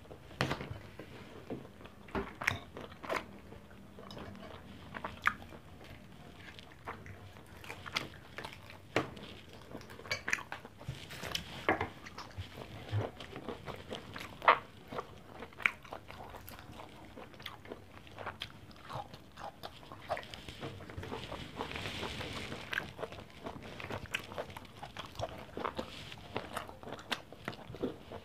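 Close mouth sounds of a person chewing and biting fried pork chop and rice, with irregular sharp crunches and smacks.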